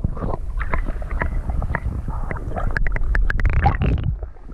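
Pond water heard from below the surface: a muffled low rumble and gurgling, broken by many short clicks and knocks.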